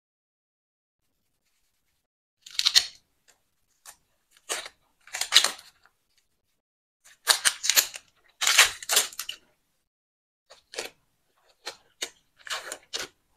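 Dry, papery red-onion skin crackling as it is cut and peeled away with a small knife. It comes in short, crisp, irregular spurts with silent gaps between.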